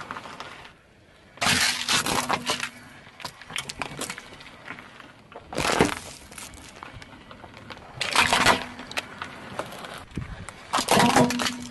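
Car tyre rolling over small objects and crushing them one after another: four loud bursts of cracking and crunching, among them a plastic tea strainer and a computer mouse breaking under the wheel.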